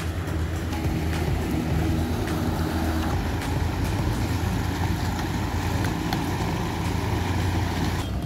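An engine running steadily with a low, even droning hum.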